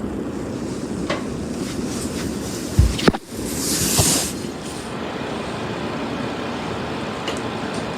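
Ceiling fan running with a steady whir. About three seconds in there is a loud thump and a sharp click, followed by a brief hiss, with a few fainter clicks elsewhere.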